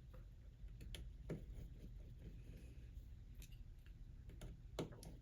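Faint, scattered clicks and taps of a small tri-point screwdriver and tiny screws against the metal parts of an iPhone's interior as the screws are undone, with the strongest click near the end.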